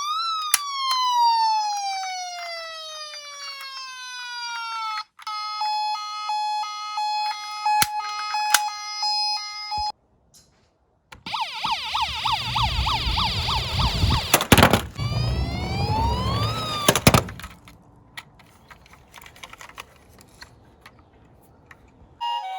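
Toy emergency vehicles' electronic sirens: a wail that slides up and then slowly down, then a two-tone hi-lo siren alternating steadily. After a short silence, a fast warbling yelp plays over a loud rumbling noise, fading to faint noise near the end.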